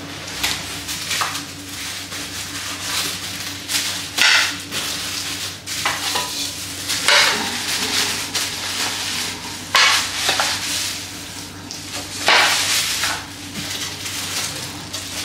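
Plastic wrapping crinkling and rustling in repeated bursts as plastic-wrapped pots are handled and pulled out of a cardboard box, with cardboard flaps rubbing.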